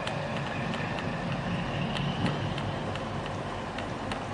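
Steady low engine rumble with a noisy hiss over it and a few faint clicks.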